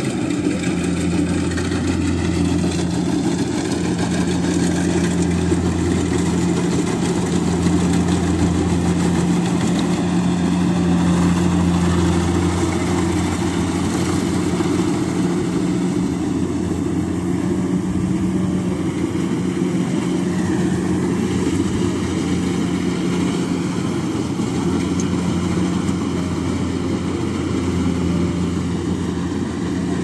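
Kubota DC-70 combine harvester's diesel engine and machinery running with a steady hum as it harvests rice.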